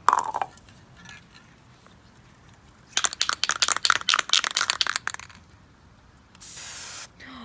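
An aerosol spray-paint can shaken hard for about two seconds, its mixing ball rattling quickly, then a short hiss of paint spraying out near the end.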